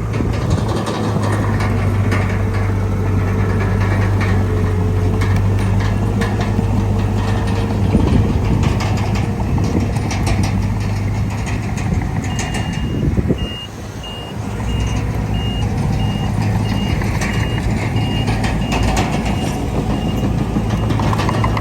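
Heavy diesel earthmoving machinery, the bulldozer and dump trucks, running steadily with rattling and clicks, easing off briefly a little past the middle. A reversing alarm starts beeping about 12 seconds in, high and even, about two beeps a second.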